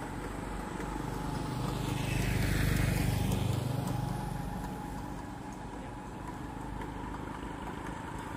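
A vehicle engine running steadily, growing louder for a second or two about two seconds in, then easing back.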